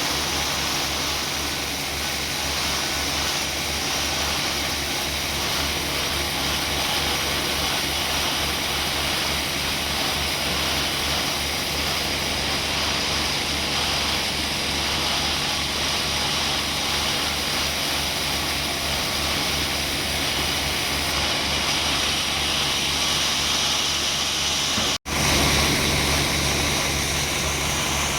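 Sawmill machinery running steadily: a motor's drone under the hiss of the saw. Near the end the sound cuts out for an instant and comes back slightly louder.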